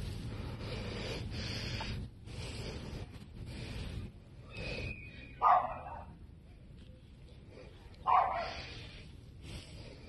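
Two short, loud animal calls, about five and a half and eight seconds in, over a background noise haze.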